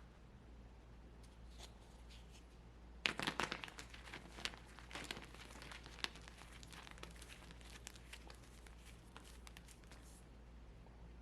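Brittle dry block being crushed and crumbling: a dense burst of crackles and crunches about three seconds in, thinning to scattered crackles that die away near the end.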